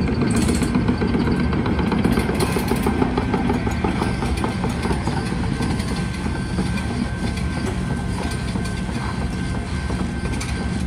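Diesel engine of a tracked rail-road excavator running as the machine crawls forward, with a rapid, even clicking over it.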